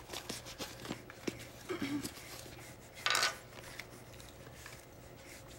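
Pencil drawing on sketchbook paper, with scattered light clicks and taps of small things on the table and one short scratchy rasp about three seconds in.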